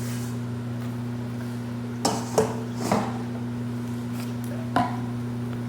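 A steady low hum with about four brief clicks and knocks, spread from about two seconds in to near the end, from food and packaging being handled at a fast-food meal.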